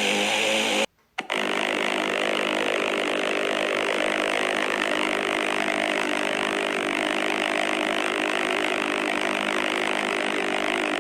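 Synthetic sound effect made with the Orange Vocoder Nano: a steady, hissing, engine-like drone with faint held tones under it. It cuts out briefly about a second in, then carries on unchanged.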